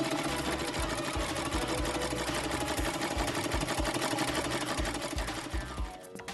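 Sew Cool threadless toy sewing machine running, its needle punching rapidly and evenly through the fabric; it stops near the end.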